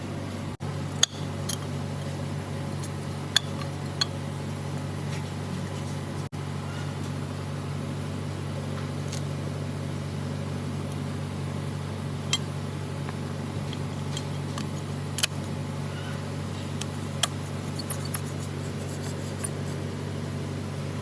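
A steady low mechanical hum with a sharp click or clink every few seconds.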